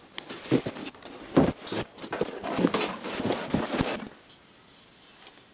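Cardboard shipping box being opened by hand: flaps and packing rustling, scraping and knocking as a cast iron wok is pulled out of it. The handling noise stops about four seconds in.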